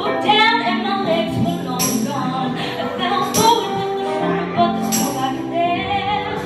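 A woman singing with vibrato over chords held on a Yamaha stage keyboard, with a tambourine shaken in a strike about every one and a half seconds.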